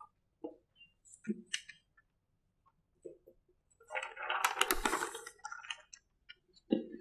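A large paper sheet rustling and crackling as it is handled and put up on a whiteboard, loudest in a burst about four seconds in, with a few small clicks and taps around it.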